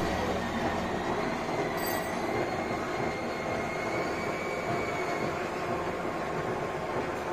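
Metal lathe running with a welded soil-auger screw turning in it: a steady mechanical drive noise with a faint high whine that fades out about five seconds in.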